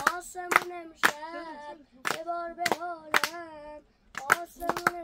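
A high voice singing short held notes, with sharp hand claps keeping time about twice a second.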